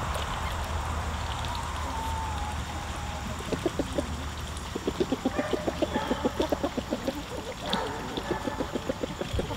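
Hens clucking in fast runs of short low clucks, about eight a second, coming in two or three bouts from about three and a half seconds in, over a low rumble that fades out around three seconds in.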